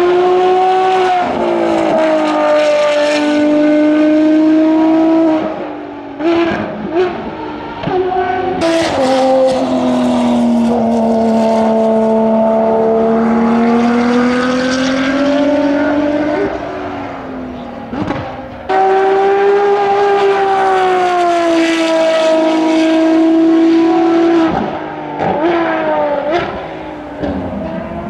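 Ferrari XX Programme V12 track cars, an FXX-K Evo and a 599XX, running hard on the circuit in several separate passes. Each engine note holds for several seconds, its pitch sagging and then climbing again. Shorter bursts of quickly shifting pitch come near the middle and near the end.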